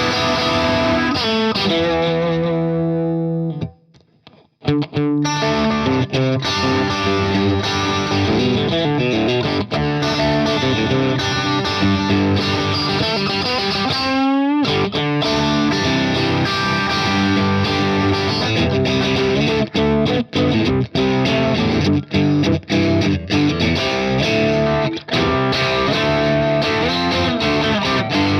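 Electric guitar on its bridge pickup, played through the Boss IR-2 pedal's Marshall amp model with some overdrive: ringing chords and note runs, with a short break about four seconds in and a quick upward pitch slide about halfway through.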